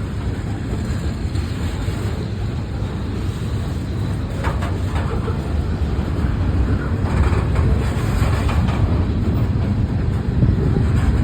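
CSX local freight train rolling past: a steady low rumble of wheels on rail that grows louder, with a few brief rattles about halfway through.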